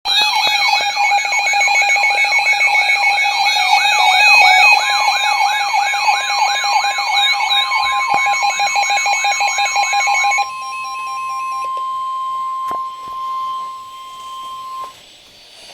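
Electronic warbling siren alarm sweeping up and down about twice a second over rapid beeping tones, stopping abruptly about ten and a half seconds in. Beneath it the NOAA Weather Radio warning alarm tone, one steady high tone, starts a couple of seconds in and sounds on alone until about a second before the end, the attention signal ahead of a spoken warning.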